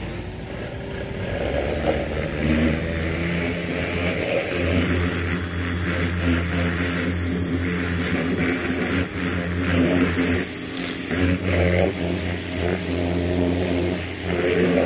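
Small electric pressure washer running steadily: its motor and pump droning while the water jet hisses against a stand-on mower, with brief dips as the spray is interrupted.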